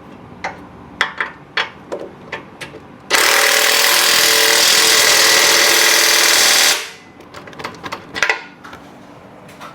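A power tool runs loudly and steadily for about four seconds, starting about three seconds in. Before and after it there are scattered clicks and knocks of tools and parts being handled.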